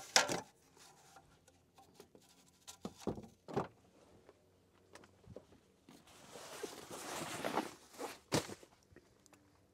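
Quiet handling noises as a metal ladder is moved aside and someone reaches into an SUV's back seat: a few scattered clicks and knocks, with soft rustling for a couple of seconds near the end.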